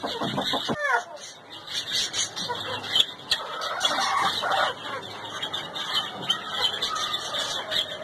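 Chickens clucking and squawking, with a busy stream of high chirps throughout. A short falling squawk comes about a second in.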